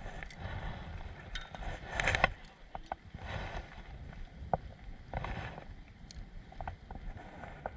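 Wind rumbling on the microphone at the waterside, with scattered light clicks and rustles of handling. There are brief louder gusts of noise about two, three and five seconds in.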